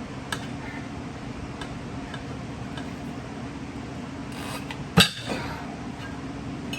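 Steel tire irons clinking and knocking against a small golf cart wheel rim while a tire bead is worked on: a few light clicks, then one sharp metallic knock about five seconds in, over a steady low hum.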